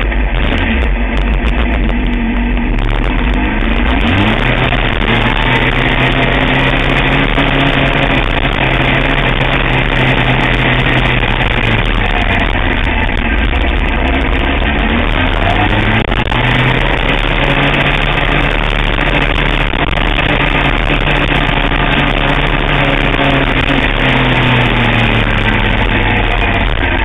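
Sportbike engine heard onboard at track speed: the pitch climbs steeply a few seconds in, holds high, sags and climbs again around the middle, and falls away near the end, over a heavy rush of wind noise.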